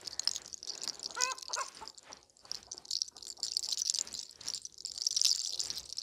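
Fingers working through long hair at the scalp during a head massage, a close, crackly rustling that rises and falls. A short high call cuts in about a second in.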